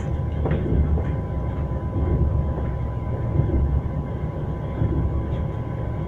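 Train wheels running on the rails: a steady low rumble, with a couple of sharp clacks over rail joints in the first second.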